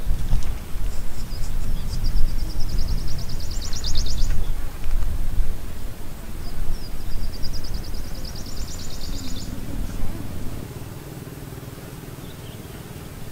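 A small songbird's high, fast trill, sung twice, each time led in by a few short notes, over an uneven low rumble that eases off about two-thirds of the way through.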